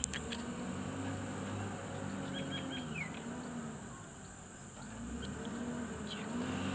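Diesel engines of a wheel loader pushing a loaded dump truck stuck in mud, revving up and falling back several times under load. A steady high-pitched insect buzz runs underneath.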